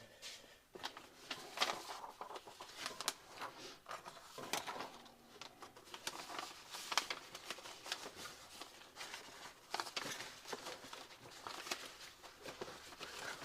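Irregular rustling, taps and clicks of papers and small items being handled and moved about on a workbench while someone searches for something.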